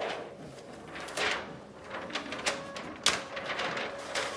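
Large paper flip-chart sheets being flipped over and handled on an easel pad: rustling sweeps of paper with several sharp crackles and snaps, the loudest about three seconds in.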